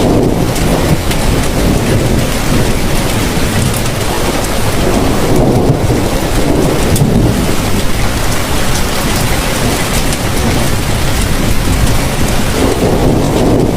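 Heavy, steady rainfall: a dense hiss with a deep low rumble beneath it that swells and eases several times.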